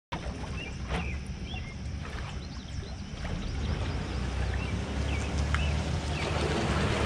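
Bass boat at a dock with a steady low rumble, most likely its motor idling. Birds chirp over it, and a few knocks sound on the hull and deck, louder and busier near the end.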